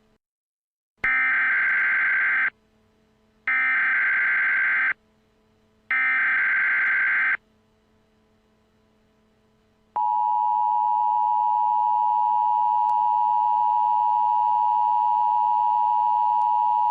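Emergency Alert System SAME header: three bursts of digital data tones, each about a second and a half long, a second apart. About ten seconds in, the steady EAS attention signal tone begins and holds.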